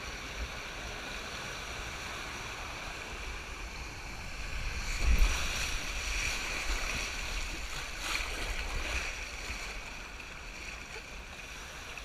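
Water rushing and splashing around an inner tube sliding down an open water-slide channel, growing louder about four seconds in, with a sudden thump about five seconds in.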